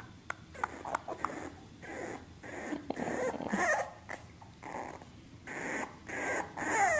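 A bulldog puppy making a series of short, breathy whimpers and snuffles, with a few small clicks in the first second and a falling whine at the very end.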